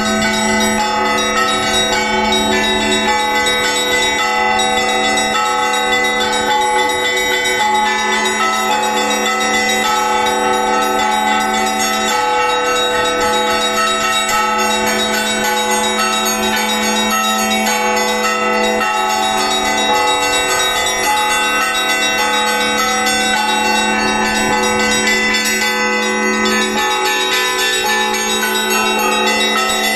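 Russian Orthodox church bells rung by hand in a continuous peal: several bells of different sizes struck in quick, overlapping strokes, their ringing tones piling up over a deep bell's steady hum.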